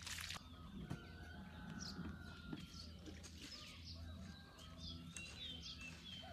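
Small wild birds chirping, with short whistled calls and a wavering phrase near the end. A brief splash of water poured from a ladle at the start, and a few soft hoe strikes in the soil.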